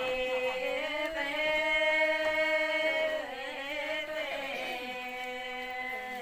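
A single voice chanting in long, drawn-out held notes. The pitch steps up about a second in, dips and wavers around the middle, then holds again until it stops near the end.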